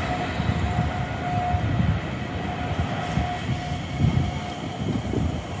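Train noise at a station: a steady low rumble with a faint thin whine that fades out about three seconds in.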